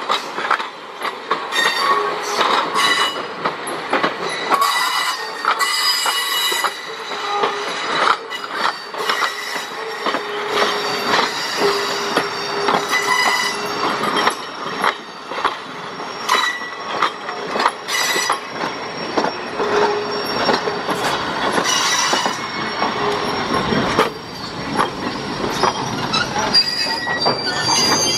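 Passing train of railroad cars, steel wheels squealing on the rails in high tones that come and go, over frequent clicks and clacks from the running gear and rail joints.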